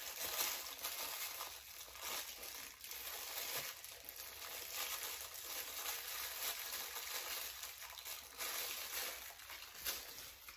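Plastic packaging bags crinkling and rustling as they are handled and opened, in uneven surges with no pause.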